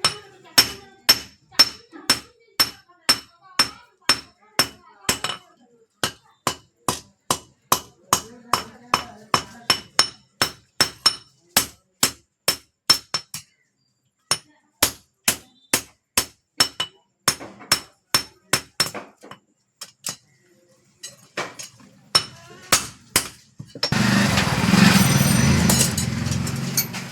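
A hand hammer striking hot steel on an anvil at a steady two to three blows a second, each blow ringing. The blows pause briefly twice, then near the end a steady machine noise with a low hum starts up.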